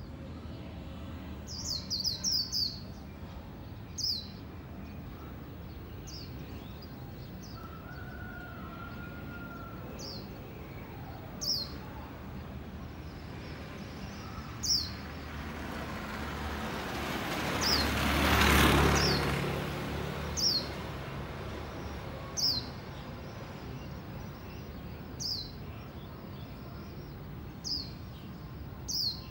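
Caged white-eye giving short, high chirps that drop in pitch, one every second or few, with a quick run of several about two seconds in. Midway a passing vehicle swells up and fades, louder than the bird.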